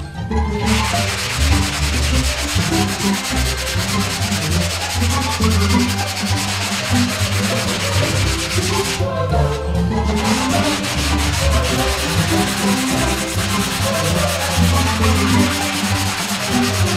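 Long hand sanding block with coarse 36-grit sandpaper pushed back and forth over cured Bondo body filler on a car's quarter panel: a continuous rough rasping in repeated strokes, with brief pauses just after the start and about halfway. The coarse grit knocks off the filler's tacky, never fully cured top layer, which would gum up 80-grit paper, before the panel is levelled with 80 grit.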